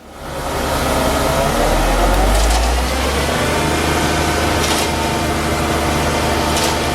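Cement truck's engine running loud and steady during a concrete pour, its pitch climbing over the first few seconds and then holding.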